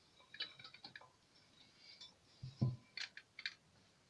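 Light clinks and taps of metal cookware, a small steamer basket and pressure-cooker pot being handled, with a few quick clinks in the first second, a duller knock about two and a half seconds in, then more clinks.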